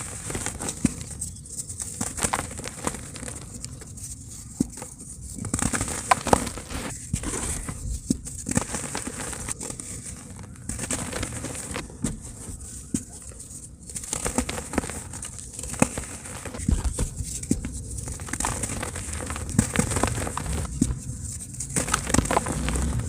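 Dry cement crumbling in a tub: many small crackles and crunches coming in runs with short pauses between them.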